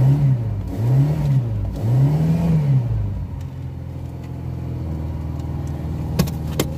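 Lada Samara (2108)'s carbureted four-cylinder engine, just started cold after a year standing with the choke set by hand, revved in three rising-and-falling blips and then settling to a steady idle about three seconds in. Two sharp clicks near the end.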